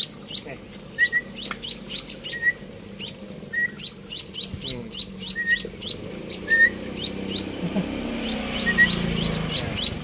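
Young emprit (munias) chirping: a rapid run of high, thin, short chirps, with a lower rising note repeated about once a second. A low rumble swells in the background near the end.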